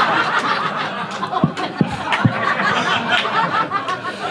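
Club audience laughing at a punchline, loudest at first and then easing off. Three sharp smacks come between about one and a half and two and a half seconds in.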